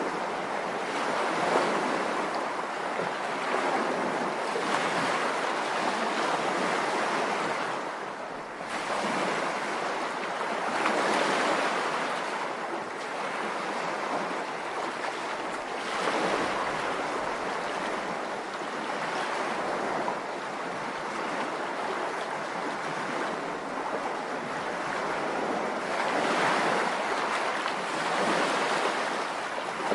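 Rushing water: a continuous hiss and wash that swells and eases every few seconds.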